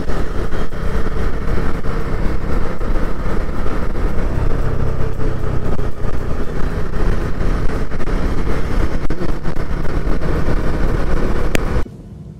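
Motorcycle under way on the road: engine and a steady rush of road and wind noise at the camera, loud. It cuts off abruptly near the end.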